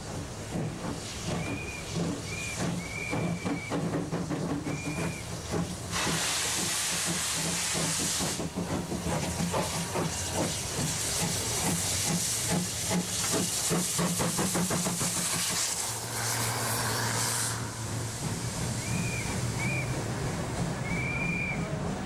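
Steam locomotives 38 1301 and 01 533 pulling a special train away, with loud spells of steam hiss about six seconds in and again for several seconds midway, and a run of chuffs from the exhaust.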